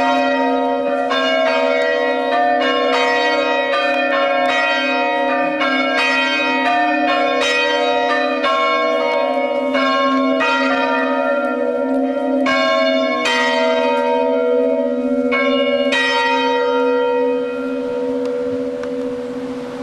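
Church tower bells being rung, a steady run of strikes about two a second with the tones ringing on. The strikes stop near the end and the bells hum away.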